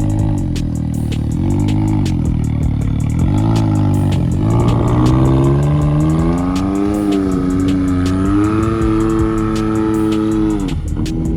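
Side-by-side off-road vehicle engine revving up and down as it drives, its pitch climbing about four seconds in, holding high, then dropping off near the end, with scattered sharp clicks.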